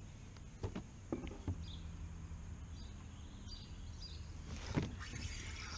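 A few soft knocks of fishing gear against the kayak, over a steady low rumble, with a hiss building near the end.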